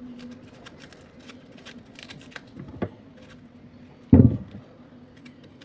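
Kitchen knife peeling unripe green plantain on a wooden cutting board: light scraping and small clicks of the blade against the skin and board, with one heavy thump about four seconds in.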